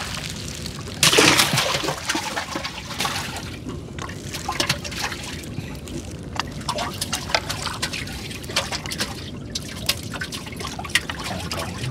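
Water trickling and splashing as a wet gill net is hauled aboard a small boat, with many small drips and splashes and a louder splash about a second in.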